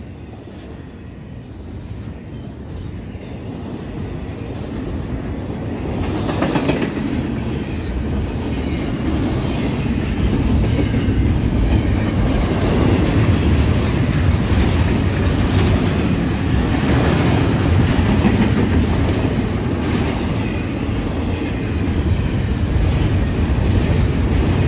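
Double-stack intermodal freight cars rolling past at close range: a steady rumble of steel wheels on rail with scattered clacks over the rail joints. It grows louder over the first several seconds, then holds steady.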